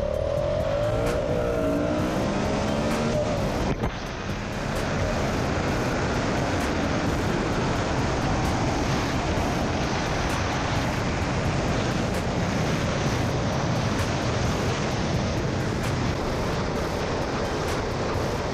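Yamaha MT-07's parallel-twin engine running at road speed under a steady rush of wind on the microphone. The engine note wavers up and down for the first few seconds, and the sound breaks off briefly about four seconds in.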